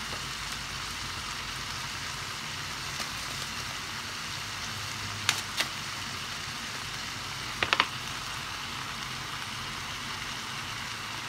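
Chopped onion, leek and red pepper sizzling steadily in butter and oil in a wide frying pan, under a block of raw minced beef just laid on top. A few sharp ticks come around the middle.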